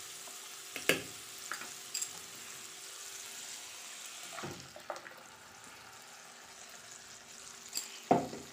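Fried onion-tomato masala sizzling steadily in a kadai as spinach purée is poured in from a blender jar. A few sharp knocks of utensils against the pan sound through it, the loudest near the end.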